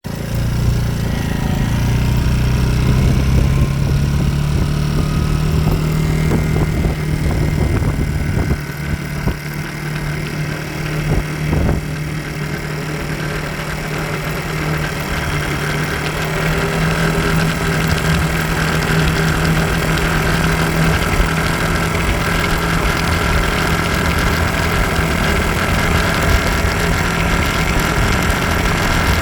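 SYM DRG scooter's single-cylinder engine idling steadily, carrying an abnormal noise that sounds somewhat like a chain, which persists even after the cam chain tensioner was adjusted.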